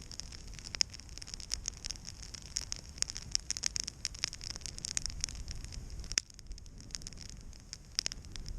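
Wood campfire crackling, with many irregular sharp pops and snaps over a steady hiss.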